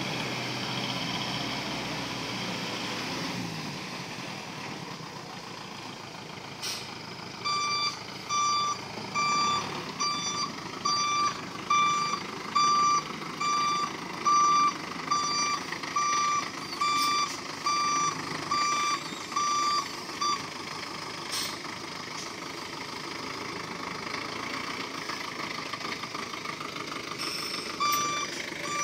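Hoa Mai small dump truck reversing, its engine running under the reversing beeper. The beeper sounds a high electronic beep about four times every three seconds, starting several seconds in, stopping a little past the middle and starting again near the end.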